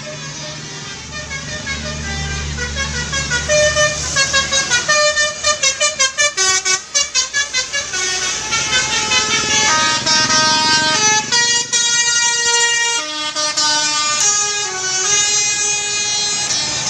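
Tour buses sounding telolet basuri musical air horns: several horn tones stepping from note to note in a melody, stuttering on and off a few times a second in the middle. A bus engine rumbles low under the horns during the first few seconds.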